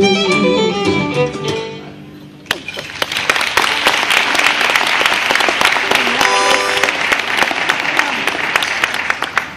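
A live band's closing chord rings and dies away, then an audience applauds, with a short cheer partway through.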